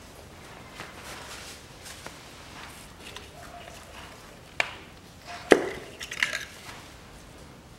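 Sharp clicks and knocks from hands handling the engine's ignition coils: one click about four and a half seconds in, a louder one about a second later, then a short cluster of smaller clicks.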